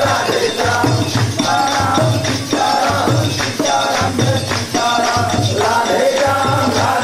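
Kirtan: devotional group singing led by one voice through a microphone, with the seated group clapping and jingling hand percussion keeping a steady beat.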